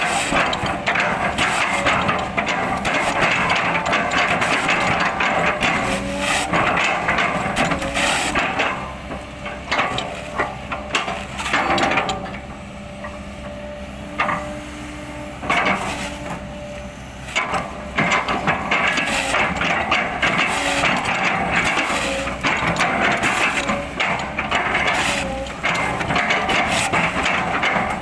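Excavator running under load while its bucket chops and crushes an oil palm trunk into chips: dense cracking and splintering of fibrous wood over the engine. The chopping eases for a few seconds about halfway through, then picks up again.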